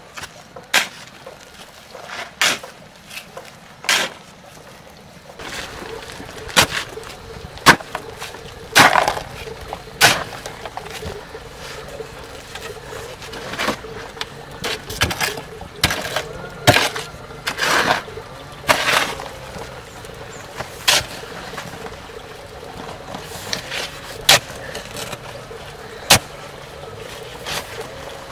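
Steel shovel scraping and digging through a pile of sand and cement, mixing dry mortar by hand, in separate strokes about every one to two seconds.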